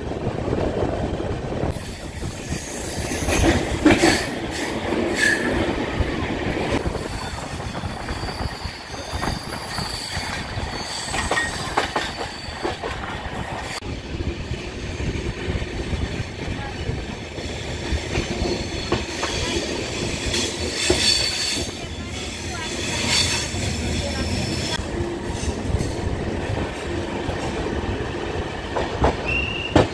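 Deccan Express passenger train running on the Bhor Ghat incline, heard from aboard. There is a steady rumble of wheels on rail with scattered knocks and clicks, and the wheels squeal in several spells, typical of flanges grinding on the ghat's curves.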